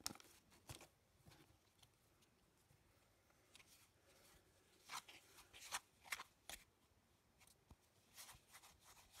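Faint, scattered scrapes and clicks of a spatula stirring dry powder in a plastic mixing bowl, in short clusters near the start and again in the second half.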